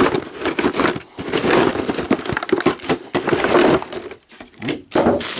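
Clear plastic packaging crinkling and crackling as hands work at it, in a dense run of sharp crackles with two short lulls, about a second in and again around four seconds in.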